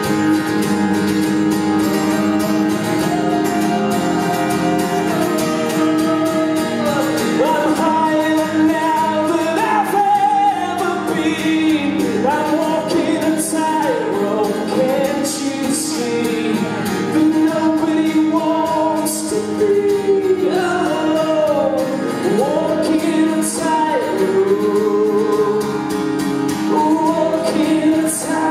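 Live music: a man singing a melody with glides in pitch over an acoustic guitar, heard through a concert sound system.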